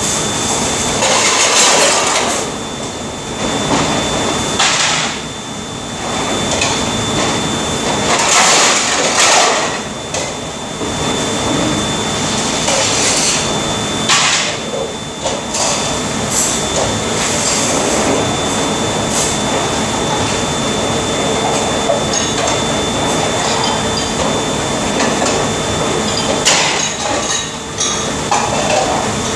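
Dishes, trays and cutlery clattering in a stainless-steel sink as they are washed by hand, with running and splashing water in bursts a few times, over a steady background hum.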